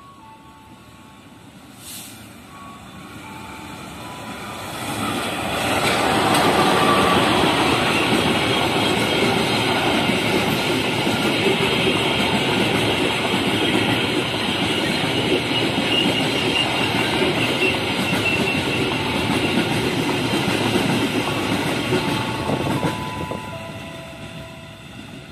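CC 206 diesel-electric locomotive and its train of flat wagons passing close by: the sound builds over a few seconds, holds as a loud, steady rumble of engine and wheels on rail, then fades away near the end as the last wagons go by.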